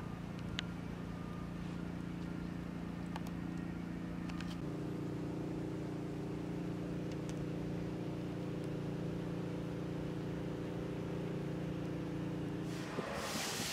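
A steady motor hum made of several fixed pitches; its pitch pattern changes about four and a half seconds in. A few faint clicks come in the first seconds, and a loud rushing noise comes in just before the end as the hum stops.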